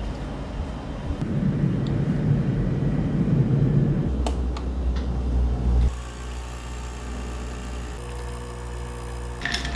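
Capsule coffee machine running as it brews over ice: a rumbling pump for the first several seconds, settling into a quieter, steady hum about six seconds in.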